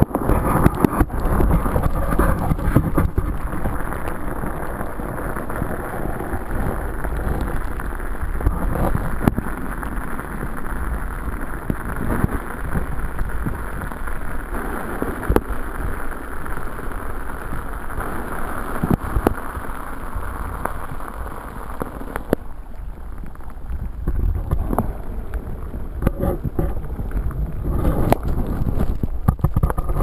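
Water rushing and sloshing around a submerged camera: a dense, muffled noise with a strong low rumble and scattered knocks.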